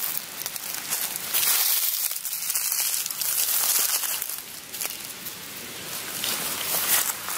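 Dry leaves and grass rustling and crunching, with scattered sharp crackles, as someone moves through the undergrowth.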